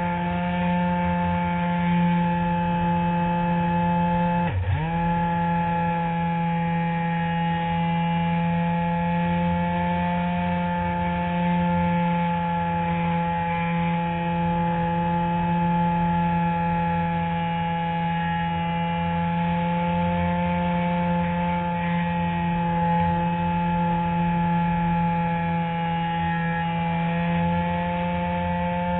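Electric motor and propeller of an RC Spectra glider under power, recorded from on board: a steady pitched drone. About four and a half seconds in, the pitch dips sharply for a moment and then recovers.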